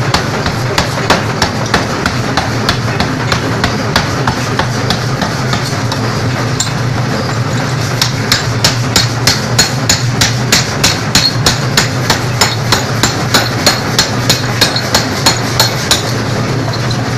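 Mechanical power hammer repeatedly striking a red-hot steel bar on its die, a rapid steady pounding over the machine's low running hum. The blows quicken about eight seconds in and stop about a second before the end.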